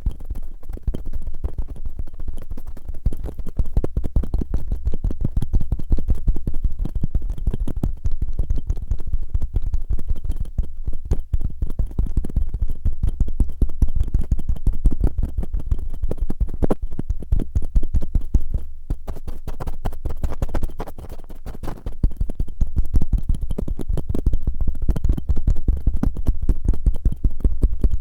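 Cotton swabs rubbing and scratching fast and roughly right against a microphone, a dense run of many strokes a second with a heavy low rumble, pausing briefly about two-thirds of the way through.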